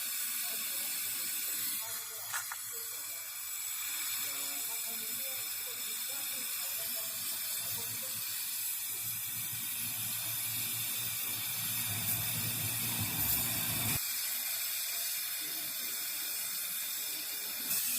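Gas brazing torch hissing steadily while brazing a refrigerator's copper tubing joint with a brazing rod. A low rumble joins the hiss about nine seconds in and cuts off suddenly about five seconds later.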